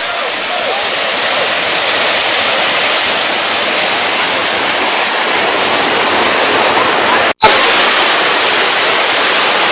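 Loud, steady rush of water cascading down the rock terraces of Dunn's River Falls, close to the microphone. The rush breaks off for a split second about seven seconds in, then goes on unchanged.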